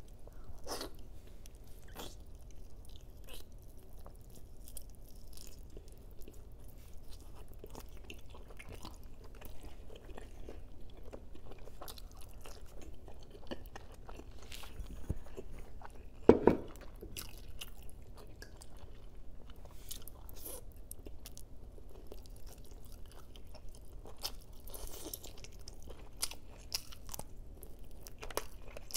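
Close-miked chewing and biting of braised adobo chicken wings and pork ribs, with many short wet clicks from the mouth and food. A single sharp thump about sixteen seconds in is the loudest sound.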